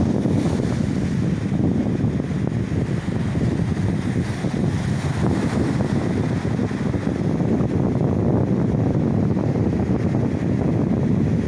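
Wind buffeting the microphone outdoors at sea, a steady low rumbling noise with sea sounds mixed in.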